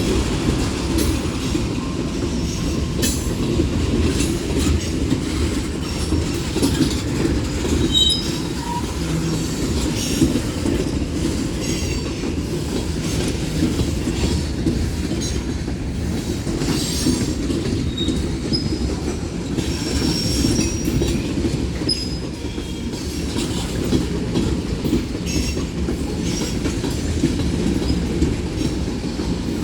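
Freight cars of a Union Pacific manifest train rolling past: a steady low rumble of steel wheels on rail, with brief high-pitched wheel squeals now and then, around 8 seconds in and again around 20 seconds in.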